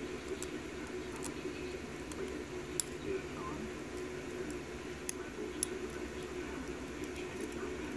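A few sharp, separate metallic clicks and ticks from small lock parts being handled as an Arrow key-in-knob pin-tumbler lock is taken apart and its pins are removed, over a steady low hum.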